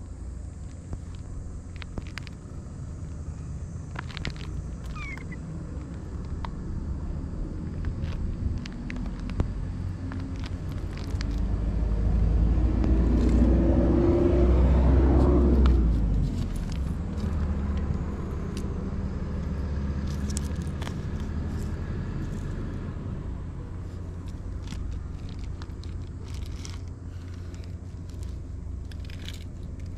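A motor vehicle passes: its engine rises over a few seconds to its loudest about halfway through, then fades away. A steady low rumble runs underneath, with a few small scattered clicks.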